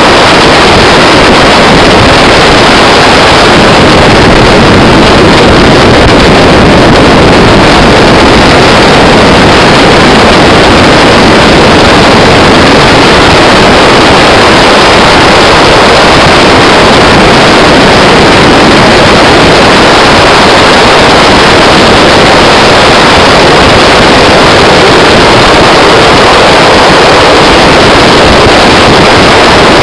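Edge Marine Velocity LS 21-foot jet boat running at speed, heard from on board as a loud, steady rush of engine, water and wind buffeting the microphone.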